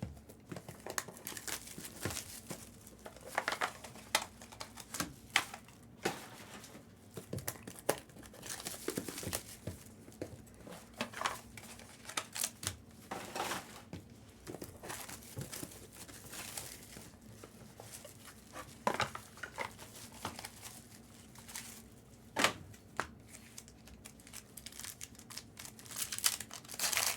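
Plastic trading-card wrappers being torn open and crinkled by hand: irregular crackles and rustles, with no steady rhythm.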